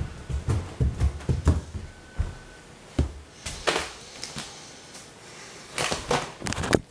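Handling noise: a run of irregular knocks and thumps with bursts of rustling, and a brief faint tone about two seconds in.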